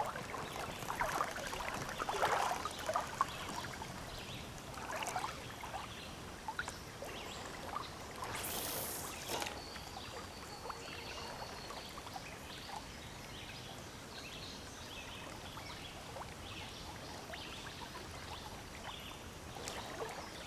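Faint flowing river water, with light splashing and trickling in the first few seconds and a brief rush of noise about eight and a half seconds in.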